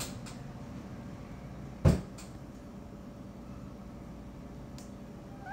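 A single sharp knock about two seconds in, over a low steady hum with a few faint clicks. The kitten starts a meow right at the end.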